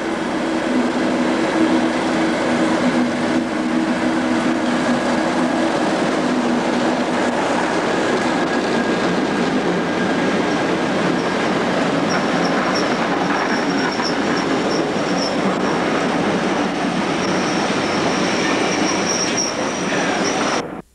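A Class 37 diesel locomotive's English Electric V12 engine running as it pulls a passenger train into a station and past close by, followed by the coaches rolling past on the rails. From about halfway through, a thin high-pitched squeal rises from the wheels as the train slows, and the sound cuts off suddenly near the end.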